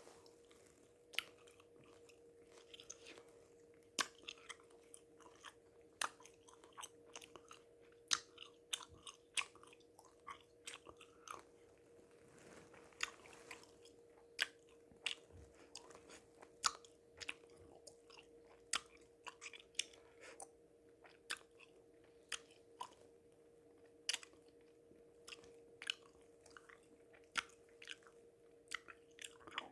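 A person chewing gum: irregular sharp clicks of the mouth and gum, about one or two a second, over a faint steady hum.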